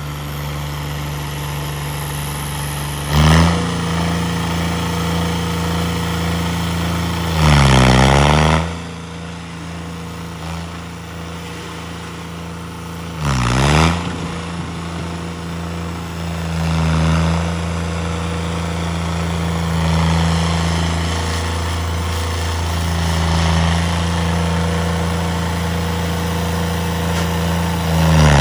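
Engines running steadily at idle, with a vehicle engine swelling louder for about a second at a time, four times, as vehicles pass close by.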